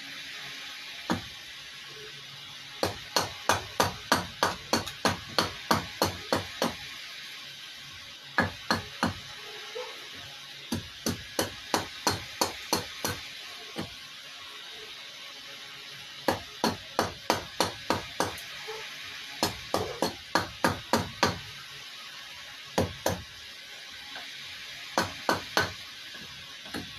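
Hatchet hewing a wooden cup blank on a stump chopping block: runs of sharp chopping blows, about three a second, broken by short pauses.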